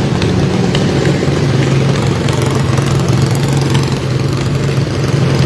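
Racing lawnmower engines running at a steady, low pitch, with little change in revs.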